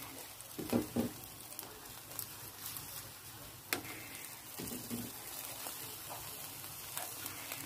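Sauce-basted chicken sizzling steadily on the wire rack of an electric grill, with a short murmur of a voice about a second in.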